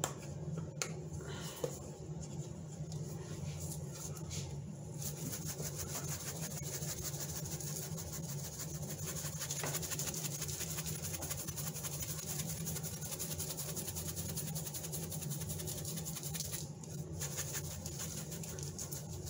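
Table-grind black pepper shaker being shaken over fish fillets: a fast, even rattle that starts about five seconds in and stops a few seconds before the end. A steady low hum runs under it.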